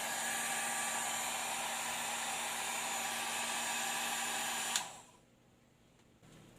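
Handheld hair dryer with detachable heads running with a steady rush of air and a low motor hum. About three-quarters of the way through it is switched off with a click and the sound quickly dies away.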